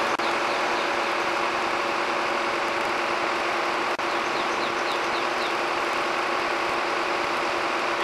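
Crane truck's engine and hydraulic drive running steadily under load, with a steady hum, while it hoists a piano. A short series of faint high chirps rises above it about four to five seconds in.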